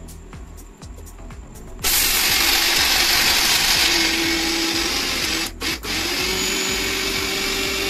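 Electric mixer grinder grinding dry dog-food kibble in its steel jar. It starts suddenly about two seconds in and runs loud and steady, then cuts out twice in quick succession a little past halfway and starts again.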